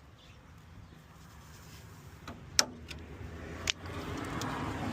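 Two sharp clicks about a second apart, over a faint handling noise that grows louder: hands working car parts into place.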